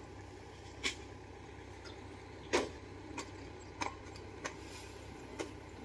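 Six scattered knocks and thumps from rice sacks being loaded onto a steel cargo barge, over a faint steady low hum.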